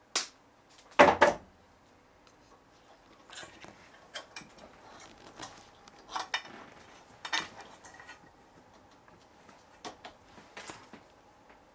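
Small metal clicks, taps and rubbing from parts of a painted metal oil lamp being handled and fitted by hand. There is a sharp click just after the start and a louder double knock about a second in, then lighter scattered clicks.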